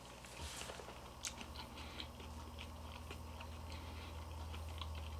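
A person chewing a mouthful of tuna noodle casserole with a breadcrumb-and-Parmesan topping: faint mouth sounds and small clicks. A steady low hum runs underneath.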